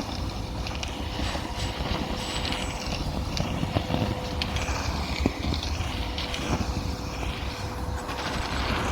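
Nilfisk Multi II wet and dry vacuum cleaner running with a steady motor whine and low rumble. Its airflow hiss swells and falls every second or two, as when the nozzle is worked back and forth over a surface.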